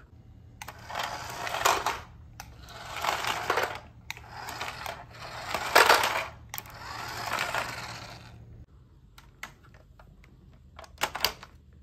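Plastic wheels of a toy tanker truck rolling over a tiled floor, rising and falling in four swells, followed by a few sharp plastic clicks as the toy is handled.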